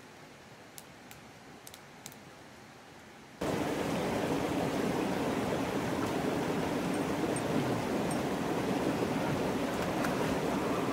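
A few faint sharp crackles from a campfire over a quiet background, then about three and a half seconds in an abrupt change to the steady rush of a shallow stream running over rocks.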